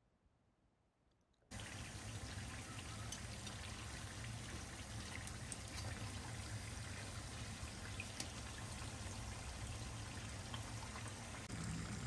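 Rolls shallow-frying in hot oil in a frying pan: a steady sizzle that starts suddenly about a second and a half in, with a few light clicks.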